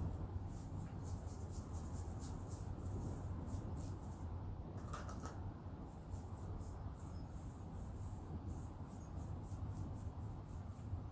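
Soft brush working gearbox oil into a motorcycle roller chain: light scratchy brushing with scattered small clicks of the chain links, over a steady low hum.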